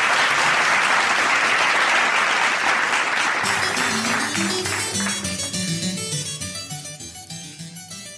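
Applause for about three and a half seconds, then a short keyboard tune of separate notes that fades out.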